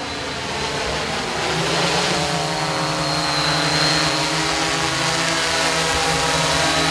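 Hexacopter's electric motors and propellers buzzing, with several pitched tones that wander slightly as the motors adjust. It grows steadily louder as the craft descends and comes in close.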